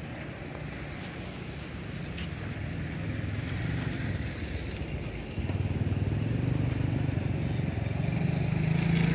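An engine running steadily with a low hum, growing gradually louder and stepping up in level about five seconds in.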